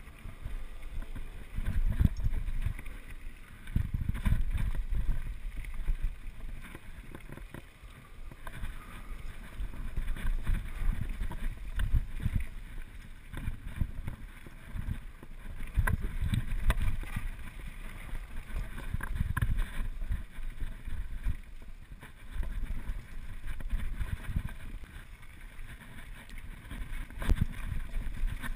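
Wind buffeting the microphone of a point-of-view camera on a mountain bike riding downhill, surging and easing with speed. Under it, tyres roll over a dirt and gravel trail and the bike clatters over bumps with scattered knocks.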